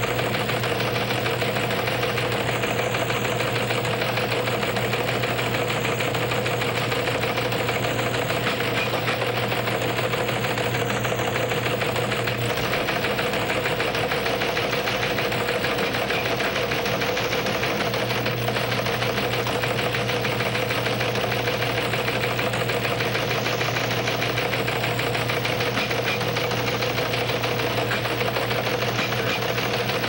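A steady machine-like buzzing hum with hiss, unchanging throughout, that cuts off abruptly at the very end.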